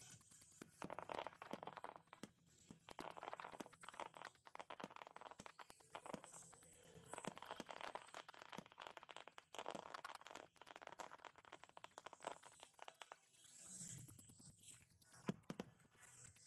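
Faint fireworks display: a rapid string of sharp pops from bursting shells over a rustling crackle.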